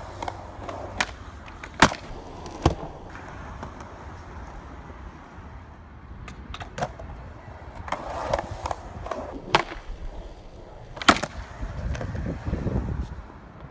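Skateboard wheels rolling on concrete, with sharp clacks of the board popping and landing as laser flips are tried, loudest in two pairs, a couple of seconds in and near the end.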